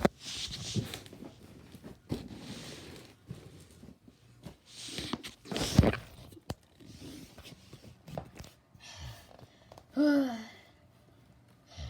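Scattered rustling and breathy noises with a few sharp clicks, then a short vocal sound about ten seconds in.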